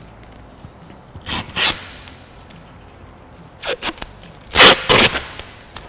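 Masking tape being pulled off the roll in several short, noisy rips, the loudest about three-quarters of the way through.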